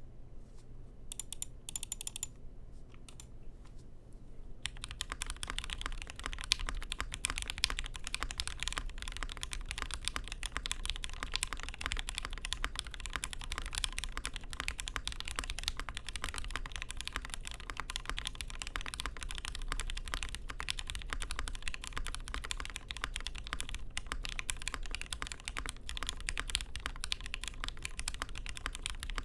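Typing on a KBD67 MK.II custom mechanical keyboard fitted with Gateron Black Ink V2 linear switches on an FR4 half plate, top-mounted on o-rings, giving a muted, poppy keystroke sound. A few scattered keystrokes come first, then steady fast typing from about four and a half seconds in.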